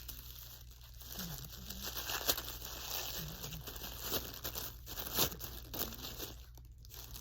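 Crinkly packaging rustling, crackling and tearing as an item is unwrapped by hand.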